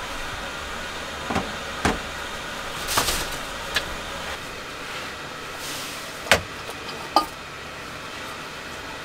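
A handful of light knocks and clunks as someone moves about inside a camper van, sits down and handles things on a table, the two sharpest about six and seven seconds in, over a steady hiss.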